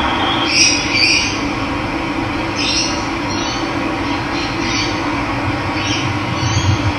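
Steady rush of running water, with wild birds giving short high chirps several times over it.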